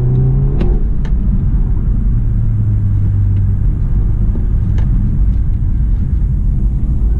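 BMW 320i's B48 2.0-litre turbo four-cylinder running steadily at low load, heard from inside the cabin over low road rumble, with a few faint clicks.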